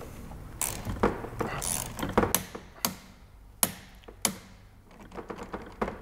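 Ratchet torque wrench and hand tools at work on cable connector screws: a scatter of sharp clicks and knocks, then a quick run of ratchet clicks near the end as the connector is tightened.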